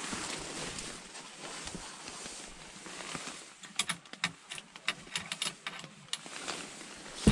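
Footsteps on a wooden deck with rustling handling noise, then a quick flurry of light clicks and taps in the middle and a heavier thump at the end.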